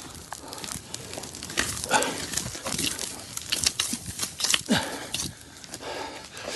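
Burning pine brush crackling and snapping in quick irregular pops, with a couple of short grunts from a man near the middle.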